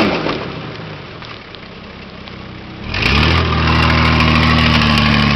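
Nissan Patrol Y60's diesel engine dropping back to a low, steady run, then revving up about three seconds in and holding high revs under load as the truck claws up a muddy bank, before backing off suddenly.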